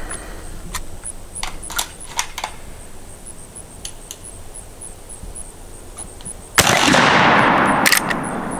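A single shot from a Marlin 1895 lever-action rifle in .45-70 firing a homemade black powder load, a little past two-thirds of the way in: a loud report that rings on and fades over about a second and a half. Before it come a few light clicks of the rifle being handled.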